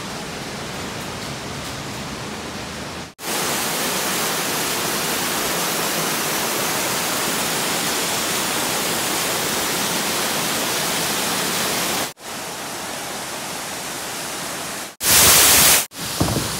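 Steady rushing of water from a waterfall and a cascade over rocks, heard in several short clips that cut in and out abruptly, the longest lasting about nine seconds in the middle. A brief, louder rush comes near the end.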